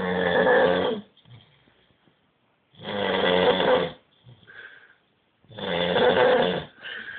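A man snoring very loudly: three long snores, each lasting about a second and coming about every two and a half seconds, with softer breathing sounds between them.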